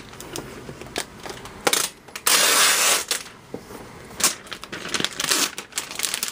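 Protective plastic sleeve being pulled off a new laptop: crinkling and rustling plastic with light handling taps. The loudest rustle comes about two and a half seconds in.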